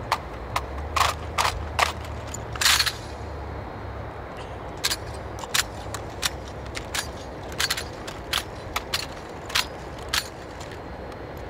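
Rifle drill: a squad's hands slap and snap their wooden-stocked rifles through the manual of arms, making a string of sharp smacks and clacks. The smacks come in a quick cluster in the first three seconds, then in another irregular run from about five to ten seconds. A low steady rumble runs underneath.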